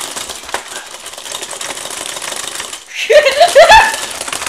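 Rapid plastic clattering of a Rock 'Em Sock 'Em Robots toy as both handles are pumped and the robots' arms punch. About three seconds in, a loud excited cry from a player drowns it for about a second.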